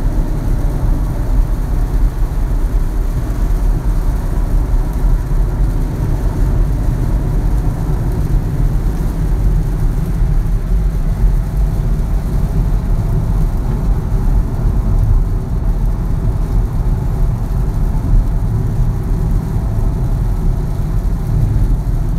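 Inside the cabin of a 2019 BMW X1 cruising at highway speed on a wet road: a steady low rumble of tyres, wind and engine.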